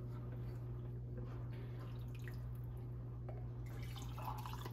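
Bone broth dripping and trickling from a ladle into a glass mug, faint, a little fuller near the end, over a steady low hum.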